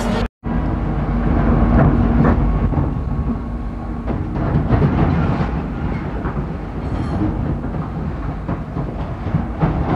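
The cabin of a Railink airport train running over points: a steady rolling rumble broken by irregular clunks as the wheels cross the switch rails. How loud this comes through is the test of how well the cabin is sealed against noise. It begins after a brief silence at the start.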